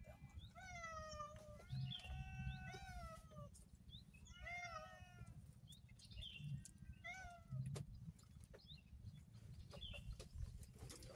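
A cat meowing repeatedly: several drawn-out, sliding meows, the longest about two seconds in and the last about seven seconds in, with a few short chirps between.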